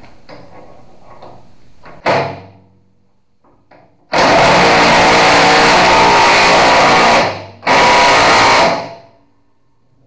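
Half-inch-drive impact wrench hammering locking nuts tight on the bolts of a skid steer bucket's bolt-on cutting edge: a loud run of about three seconds starting about four seconds in, then a second burst of about a second after a short pause.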